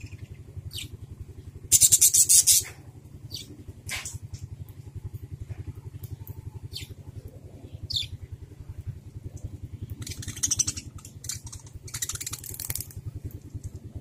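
Caged budgerigars chirping, with short loud bursts of rapid chatter about two seconds in and twice more near the end. Under them runs a steady low pulsing hum like a small engine running.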